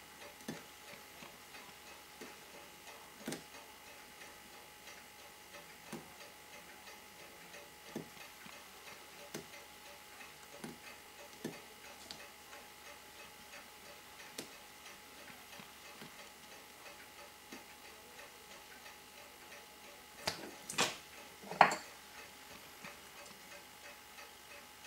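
Sparse, irregular light clicks of small steel parts and a hand tool being worked on a mechanical watch movement on a metal bench block, over a faint steady hum. Near the end a few louder clicks come close together, one with a short metallic ring as the tool strikes metal.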